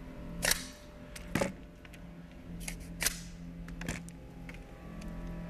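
The nail magazines ('chambers') of pneumatic nail guns being snapped shut one after another: a series of sharp mechanical clicks, four loud and several fainter, irregularly spaced, over a low steady hum.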